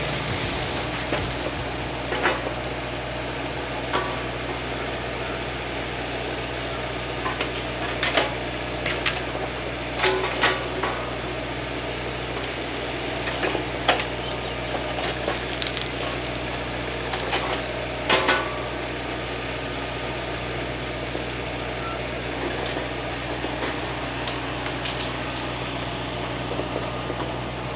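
Excavator's diesel engine running steadily, with scattered sharp knocks and cracks from the work, a cluster of them about eight to eighteen seconds in.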